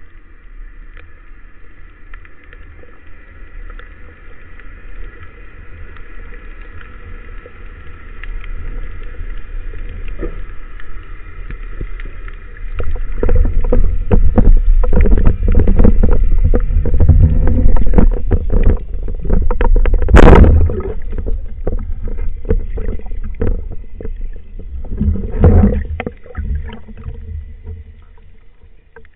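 Underwater sound heard through a camera housing on a Gimansub Labrax double-band speargun: water rushing and knocking against the gun as the diver moves, growing much louder about halfway through. About two-thirds of the way in, one sharp loud crack as the speargun fires and its bands release, followed by further knocking.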